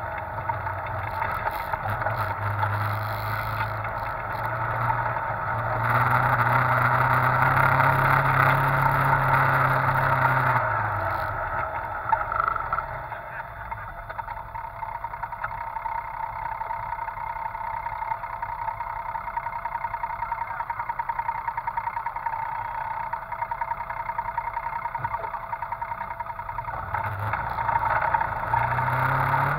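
Side-by-side UTV engine running under throttle, its pitch rising and then falling away about eleven seconds in. It then runs low and even with a regular pulse, as when idling, and picks up again near the end.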